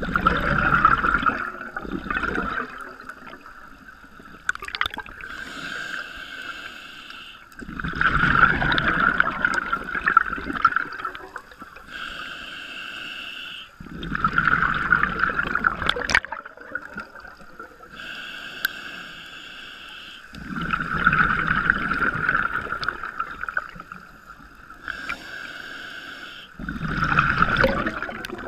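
Scuba regulator breathing heard from the diver's own mask: five exhalations as loud bubbling rushes, each two to three seconds long, alternating with short hissing inhalations through the demand valve, about one breath every six seconds. A steady high tone runs underneath.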